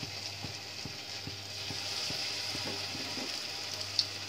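Battered cauliflower florets deep-frying in hot oil: a steady sizzle with small scattered crackles, and one sharper pop near the end.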